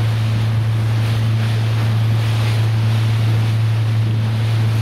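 Boat engine running with a steady, even low hum, with the sea washing around and wind buffeting the microphone.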